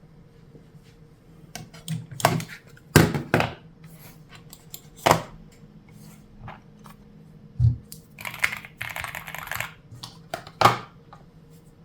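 Handling noises: a series of sharp clicks and knocks at uneven intervals, one duller thump, and a short stretch of rustling.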